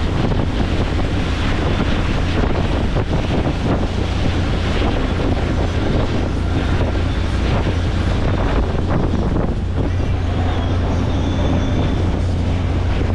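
Motorboat running under way: a steady low engine drone, with wind buffeting the microphone and water noise over it.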